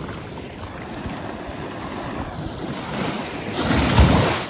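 Small sea waves washing at the shoreline, with wind on the microphone. The noise swells to a loud rush about three and a half seconds in, then cuts off suddenly just before the end.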